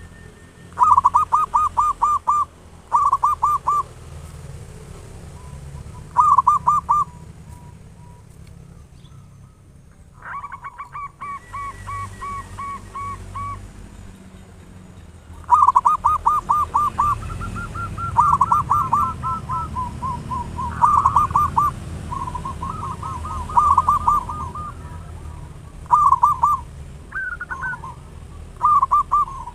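Zebra doves (perkutut) cooing: phrases of rapid staccato coos repeated in bouts, almost without pause in the second half, at times two birds overlapping, over a steady low rumble.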